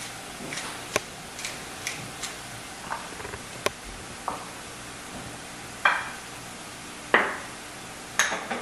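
Wooden pepper mill grinding in a few short twists, then dishes set down on a wooden cutting board: a ceramic bowl and a small ceramic ramekin knocking onto the wood, with the loudest knocks in the second half.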